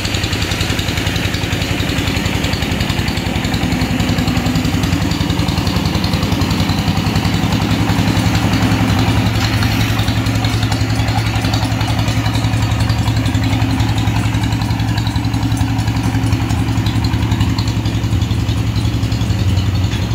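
An engine running steadily, with a fast, even pulsing and a constant low hum.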